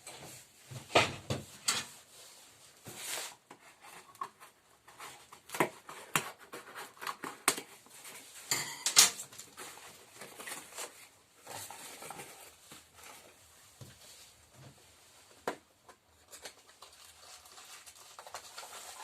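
A small box of lathe accessories being opened and the parts handled: irregular clicks, knocks and rustling, with light metallic clinks of the tools.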